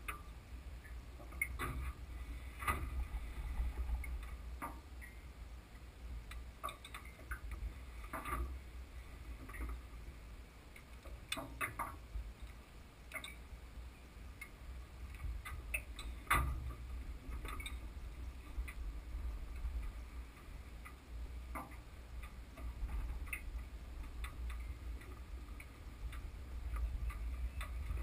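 Faint, scattered clicks and taps at irregular intervals over a low, steady rumble.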